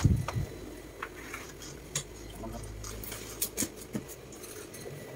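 A heavy plastic-wrapped cardboard box lands on a tile floor with a dull thud, followed by a few light taps and rustles as hands handle its taped surface.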